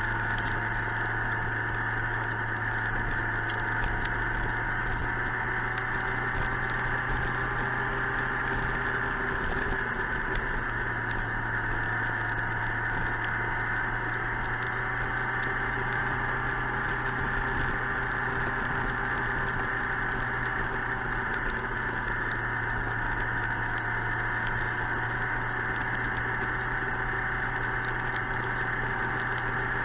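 Suzuki GSX-R 1000 inline-four running at a steady speed, heard from the rider's camera mic under constant wind noise. Many small raindrops tick against the mic.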